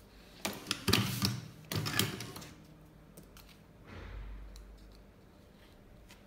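Motorised cigarette-rolling machine (Prof Matic T3) running a filling cycle, its motor-driven slide clattering as it packs tobacco into a filter tube, in two loud spells about a second in and two seconds in, followed by a fainter low rumble.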